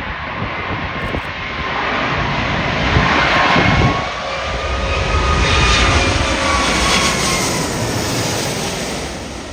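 Jet airliner's engines flying past low on landing approach, the noise swelling to a peak about six seconds in and then fading, with a high engine whine that drops slightly in pitch as it passes. Gusty wind buffets the microphone.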